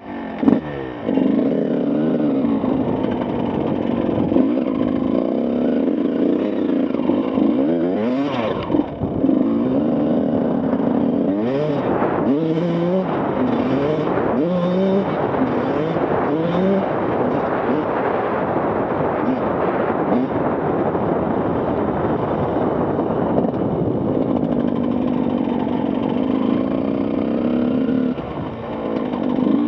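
Yamaha YZ125 single-cylinder two-stroke motocross engine, heard from on the bike. It runs at a steady rev at first, then revs up in a string of rising pulls through the gears as the bike accelerates, and settles back to a steady rev near the end.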